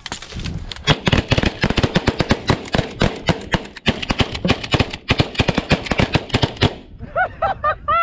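Several 12-gauge shotguns firing rapidly at once, dozens of overlapping shots over about six seconds. The firing stops suddenly about seven seconds in, and short rising-and-falling calls follow.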